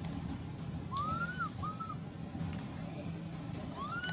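Baby macaque crying with thin, whistle-like coo calls: two short arching cries about a second in, and a third rising one near the end, over a steady low background hum.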